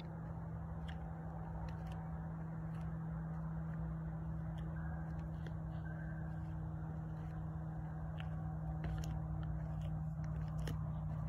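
A steady low hum that holds one pitch throughout, over a soft background hiss, with a few faint clicks and rustles.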